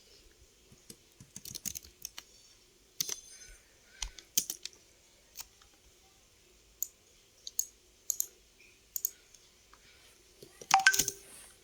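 Irregular clicks and taps of a computer keyboard being typed on, in short clusters with pauses between them and a louder flurry near the end.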